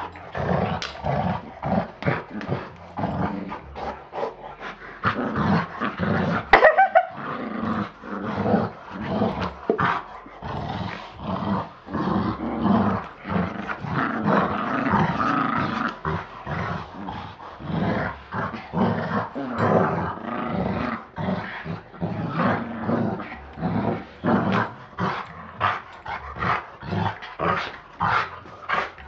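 A Chihuahua and a large dog play-fighting, growling over and over in short bursts, with one louder, higher-pitched cry about six and a half seconds in.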